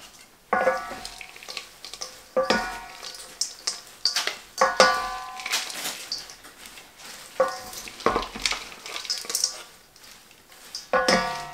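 Wooden salad servers tossing dressed kale in a stainless steel mixing bowl: wet leaves swishing, with the servers scraping and knocking against the bowl in about six separate bursts.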